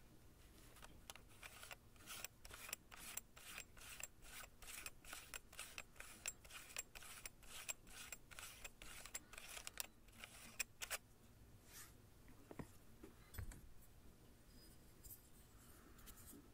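Faint rapid clicking and rubbing, about three clicks a second, as a threaded protective ring is twisted off the front of a Leica Q lens by hand; the clicking stops about two thirds of the way through.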